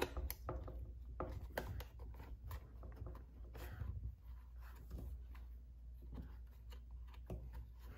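Faint, scattered small clicks and scratching of fingers pressing wiring and its connector into the plastic grooves of a Stihl chainsaw's carburetor housing.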